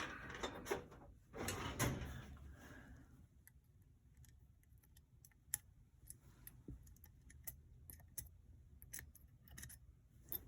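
Small metal revolver parts and pin punches being handled, clicking and rattling lightly. A rustle of handling fills the first few seconds, then scattered single sharp clicks follow.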